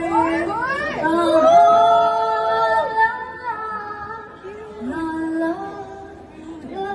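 A woman singing a slow melody with sliding, ornamented notes. The pitch sweeps upward in the first second and a long note is held from about one and a half to three seconds in, followed by a softer phrase.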